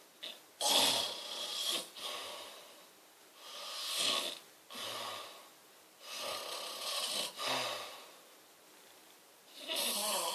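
A sleeping person snoring, about four slow breaths, each a rasping snore in two parts, some with a low rattling buzz.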